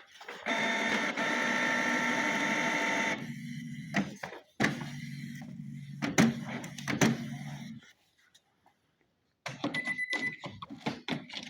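Canon PIXMA G4411 ink tank printer's internal motors and carriage running: a steady whirr for about three seconds, then a lower hum with clicks and knocks that stops about eight seconds in. After a short pause come a few clicks and a brief high beep, while the ink cartridges sit in the carriage without being locked down.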